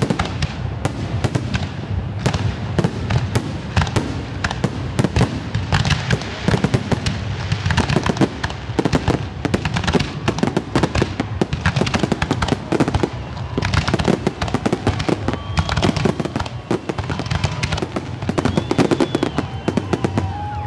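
Aerial fireworks display: a rapid, dense barrage of shell bursts, bangs and crackling that goes on without a break.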